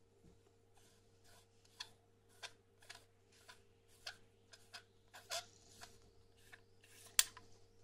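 Wollensak 209 mm copy lens being twisted apart by hand: an irregular string of faint clicks and short scratchy scrapes from its barrel and rings turning against each other, with the sharpest click near the end.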